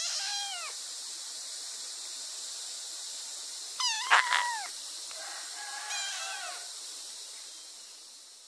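Young kitten meowing three times: a short high meow at the start, a louder one about four seconds in with a sharp knock in the middle of it, and a fainter, longer one around six seconds in. A steady hiss runs underneath.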